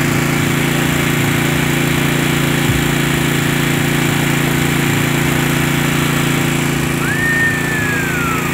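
Open-frame portable generator engine running steadily at constant speed, a continuous even drone. Near the end, a brief high whistle-like tone rises, holds and slowly falls.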